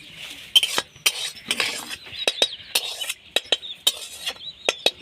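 A spoon knocking, clinking and scraping against cookware as boiled rice is scooped into a perforated bowl to drain, with a dozen or so sharp clinks.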